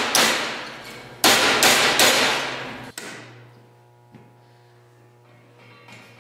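A 5-pound hammer striking a small piece of sheet steel clamped in a bench vise, bending it into a curve. One blow at the start, then three hard blows in quick succession about a second in, each ringing out and dying away.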